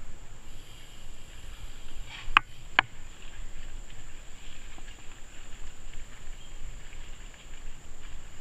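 Mountain bike rolling fast down a dirt singletrack: uneven tyre and rattle noise, with two sharp clacks about half a second apart, roughly two and a half seconds in.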